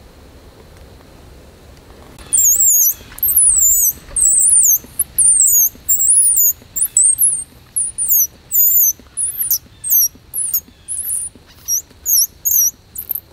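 Squirrel distress call blown on a blade of grass held between the lips: a fast series of loud, shrill, wavering squeals starting about two seconds in, breaking into shorter and shorter bursts toward the end. It mimics a squirrel in distress to lure squirrels within shooting range.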